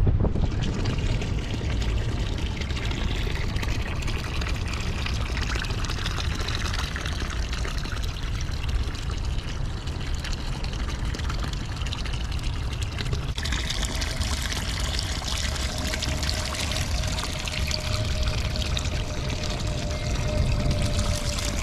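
Water trickling and splashing steadily, with a low rumble underneath; the sound shifts a little over halfway through and a faint steady hum comes in.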